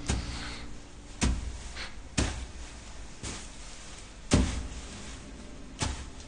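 A slow, uneven series of sharp knocks, six of them roughly a second apart, the fifth the loudest.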